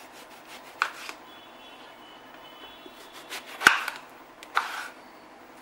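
Kitchen knife cutting a large eggplant on a wooden chopping board: three scattered knocks of the blade reaching the board, the loudest about two-thirds of the way through.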